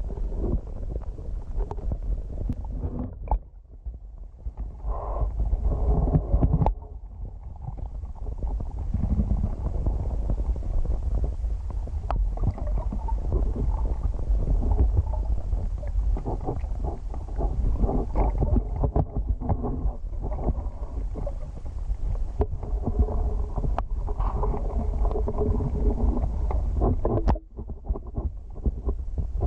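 Muffled low rumble of moving water heard through a submerged waterproof camera housing, dipping briefly about three and a half seconds in and again near the end.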